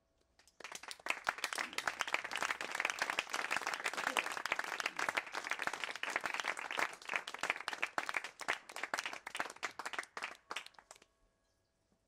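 A small audience clapping after a spoken-word performance. It starts about half a second in and thins out and dies away near the end.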